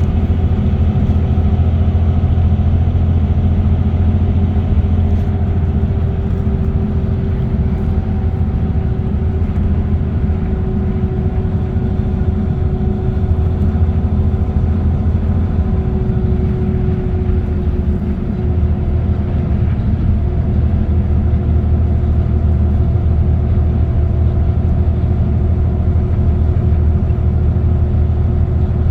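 Car cruising on an expressway: a steady low rumble of road and engine noise with a constant hum that sinks slightly in pitch midway.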